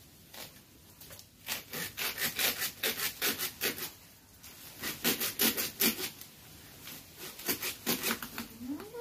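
Hand saw cutting through a fishtail palm trunk, rasping back-and-forth strokes at about four a second in three spells with short pauses between.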